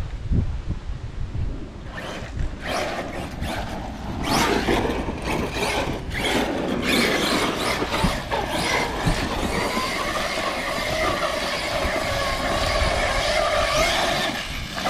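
Brushless electric RC truck running on a 4S LiPo pack, driven hard across wet grass, its motor and drivetrain whining. The whine comes in surges through the first half and holds steady over the last few seconds.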